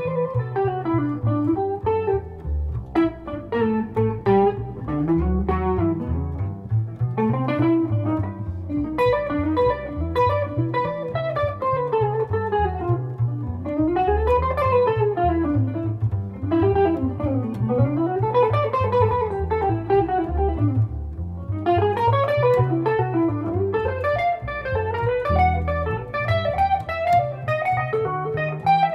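Jazz duo of electric guitar and double bass playing: the guitar plays flowing melodic lines that climb and fall, over a continuous line of low bass notes.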